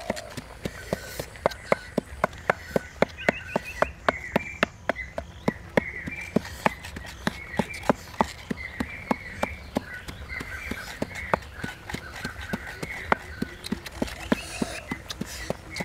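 A steady run of sharp knocks, about three a second, like a blade or tool striking again and again, with birds chirping in the background.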